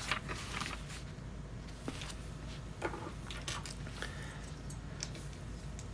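Loose plastic LEGO pieces being handled and sorted on a table: scattered light clicks and small rattles over a faint low hum.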